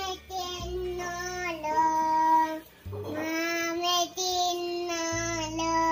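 A song with a child's high singing voice holding long, steady notes over a low accompaniment that changes chord every two seconds or so.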